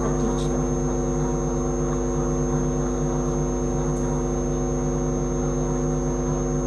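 Steady electrical hum: several even, unchanging tones with a thin high whine over them, a mains buzz coming through an open microphone on a video call.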